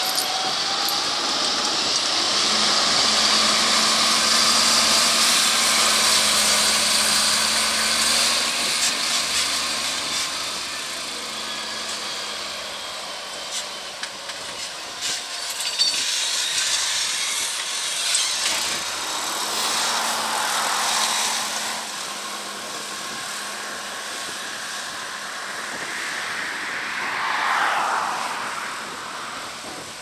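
Fendt 936 Vario and Fendt 714 Vario tractors running hard under heavy pulling load, the 714 hitched by chain in front of the 936 to help draw a Panter deep plough through the soil. The engine noise swells and fades as the machines move past.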